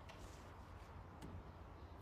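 Near silence: room tone, with one faint click a little over a second in.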